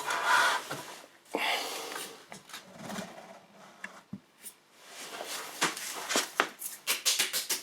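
Handling noise on a chop saw: rustling and scraping followed by a run of light clicks and taps, thickest in the last two seconds.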